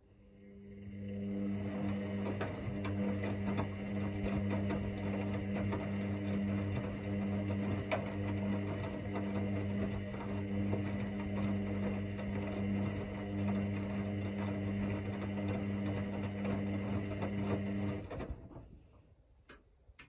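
Hoover DynamicNext front-loading washing machine turning its drum during a cotton 40 °C main wash. The motor starts about half a second in and runs with a steady hum, with many small knocks from the tumbling wet laundry. It stops about two seconds before the end.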